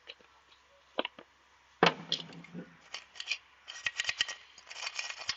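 Small metal parts clicking and scraping as a removed ceiling-fan ball bearing is handled for cleaning. There are a few clicks, a louder knock about two seconds in, then a quick run of scrapes and clicks near the end.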